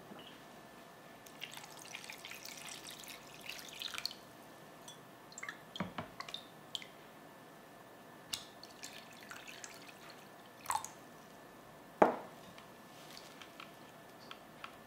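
Water poured into a glass mixing bowl over cut potato pieces, followed by drips and small splashes as hands move the potatoes in the water. A single sharp knock about three-quarters of the way through is the loudest sound.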